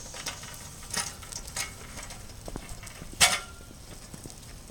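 A few scattered light knocks and clicks over a faint background hiss, the sharpest about three seconds in.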